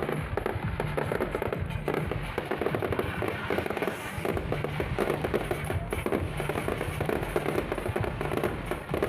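Fireworks display: a dense, continuous run of rapid pops and crackles, with music playing underneath.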